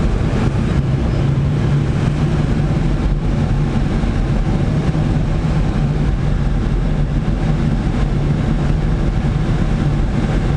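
Steady rush of airflow around the cockpit of a Blanik L-23 glider in gliding flight, heard from inside the canopy, with a steady low hum underneath.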